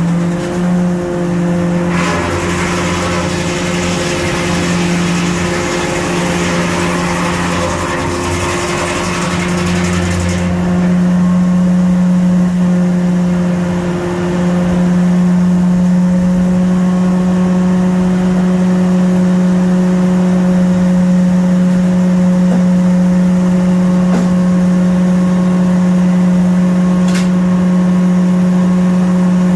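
Steam-engine-driven Waterous circular sawmill running, its belt-driven saw giving a steady hum. A loud hiss comes in about two seconds in and cuts off suddenly about ten seconds in.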